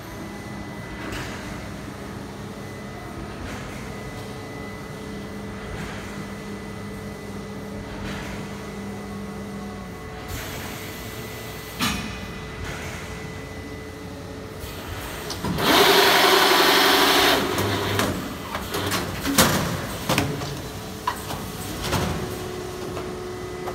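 BMtek automatic plastic-film winder with core loading running with a steady mechanical hum, a low tone in it stopping partway through. A loud hiss lasts about two seconds past the middle, followed by a string of sharp clacks and knocks as the mechanism moves.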